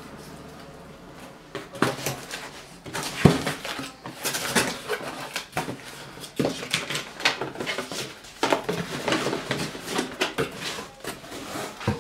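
Cardboard shipping box being opened by hand: flaps folded back and the shoebox and papers inside handled and lifted out, a run of rustles, scrapes and knocks, the sharpest about three seconds in.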